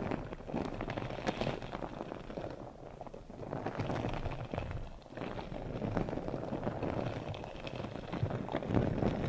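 Close-miked ASMR trigger sounds: a dense, crackly rustling and scratching made of many fine clicks, swelling and easing off every few seconds.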